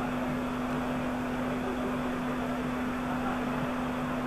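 Steady hiss-like background noise with a constant low hum under it, the soundtrack of an old 1971 match film between bits of commentary.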